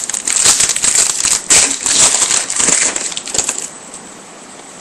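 Crisp rustling and crinkling of trading-card pack wrappers and cards being handled, dying down after about three and a half seconds.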